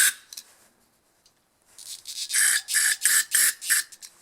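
Aerosol can of carburetor cleaner sprayed in short hissing bursts into a small-engine carburetor's jets and ports: one burst at the start, then about five quick bursts in a row in the second half.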